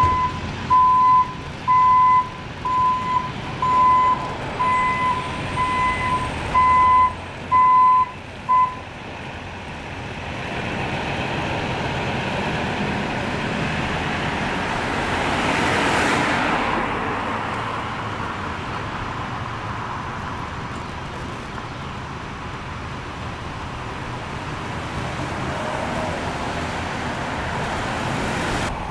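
An electronic warning beeper sounds about once a second for roughly the first nine seconds, like a vehicle's reversing alarm. Then a vehicle passes, rising to its loudest about two-thirds of the way in before settling into steady traffic noise.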